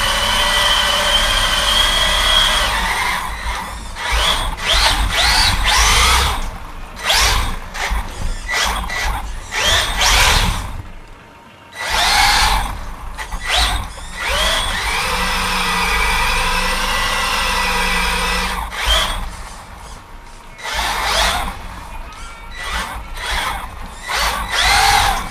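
LRP S10 Blast SC radio-controlled short-course truck's brushless electric motor whining in bursts, its pitch rising and falling with the throttle as the truck spins and slides, with tyres squealing on the smooth floor. The sound drops out briefly about eleven seconds in and again near twenty seconds.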